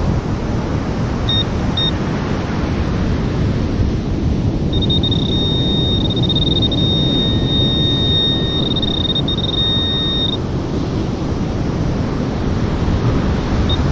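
Metal-detecting pinpointer probing a hole in the sand: two short high beeps, then a steady high-pitched tone for about six seconds as it sits on the buried target, and one more short beep near the end. Under it, a steady rush of surf and wind on the microphone.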